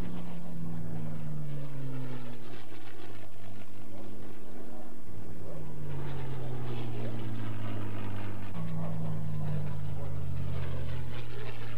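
Packard Merlin V-12 engines of P-51D Mustang fighters droning as the planes fly past, the pitch dropping as each one goes by, several times over.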